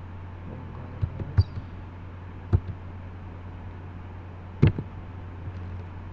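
A computer keyboard clicked a handful of times at irregular intervals while a URL is edited, over a steady low hum.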